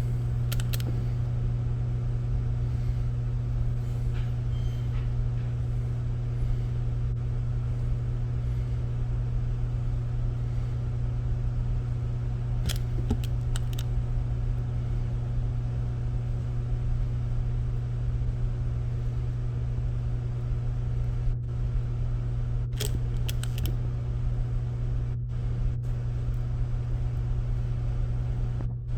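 Steady low electrical hum, even and unchanging, with a few faint clicks and ticks scattered through it.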